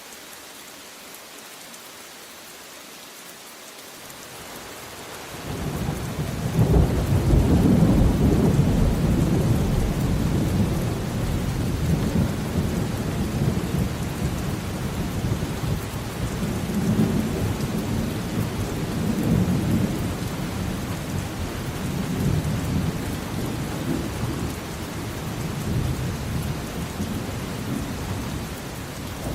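Steady rain falling, then about five seconds in a long roll of thunder builds, loudest a few seconds later, and keeps rumbling in slow swells over the rain.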